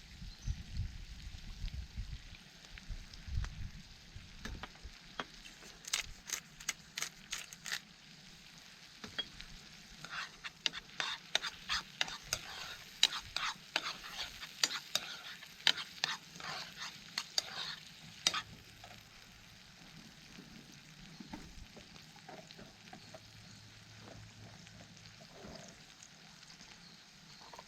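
Food frying in a pan over a campfire, with a utensil stirring and scraping in the pan in runs of quick clicks and taps, busiest in the middle, then settling to a low sizzle.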